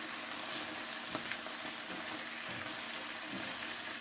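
Chicken pieces with crushed ginger and garlic frying in hot oil in a non-stick pan on a turned-up gas flame: a steady sizzle, with a silicone spatula stirring the pieces.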